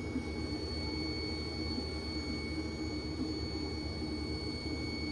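Steady machine hum of a Stratasys J55 PolyJet 3D printer running its routine cleaning wizard with the print heads at temperature, with two faint, steady high whines over it.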